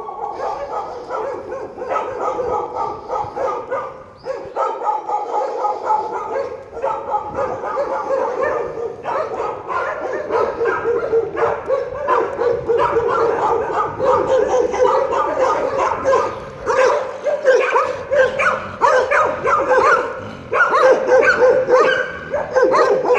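A pack of street dogs barking and yelping nonstop, many barks overlapping, in an aggressive confrontation with a pet dog.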